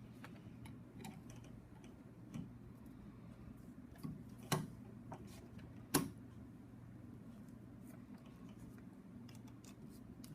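Sparse small clicks and taps of metal ratchet parts being handled and fitted together during reassembly, with two sharper clicks about four and a half and six seconds in, over a steady low hum.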